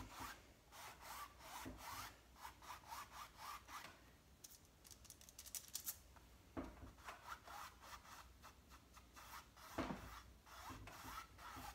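Paintbrush bristles rubbing lightly over a stretched canvas in quick back-and-forth strokes, a faint, rhythmic scratchy brushing as white acrylic is dry-brushed on with a very feathery touch. The strokes pause briefly around the middle, where there are a few small clicks.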